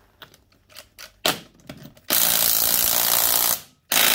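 A few light clicks as the socket goes onto the lug nuts of an ATV's rear wheel, then a cordless impact wrench hammering away undoing a wheel nut. It runs for about a second and a half, stops briefly near the end, then starts again.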